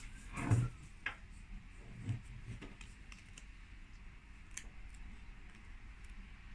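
A book being handled and its pages turned: a soft thump about half a second in, then a few light, scattered taps and clicks.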